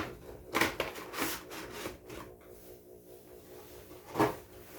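Toy-car packaging being torn and worked open by hand: a few short scraping, tearing rasps, the strongest about half a second in, just after a second, and again near the end.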